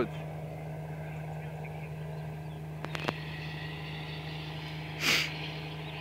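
Fishing boat's engine running steadily under way, a constant low hum carried across the water. Two sharp clicks come about three seconds in, and a short rush of noise, the loudest moment, just after five seconds.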